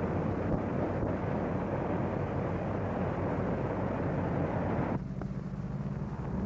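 Propeller aircraft engines running, a steady rushing engine noise. About five seconds in it cuts suddenly to a lower, steadier engine hum.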